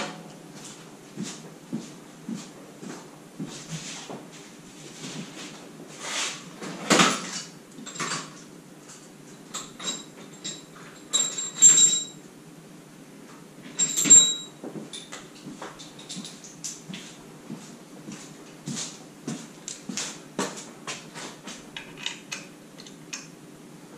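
Hand tools and small metal parts being handled: scattered clicks, knocks and clatters, with a few short metallic clinks that ring briefly about halfway through.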